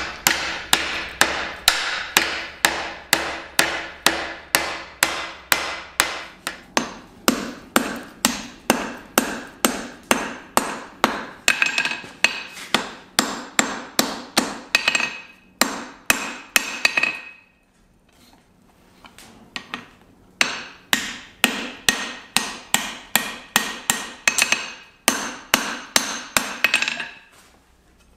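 Hand hammer striking hot steel on an anvil in a steady rhythm of about two to three blows a second, with the anvil ringing. The blows stop for about three seconds past the middle, then start again.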